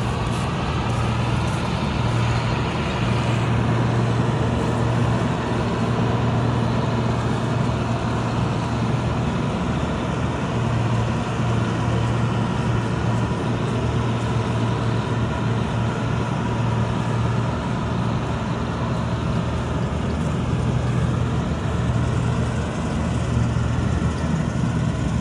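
Combine harvester's diesel engine running steadily, a constant low hum without pauses.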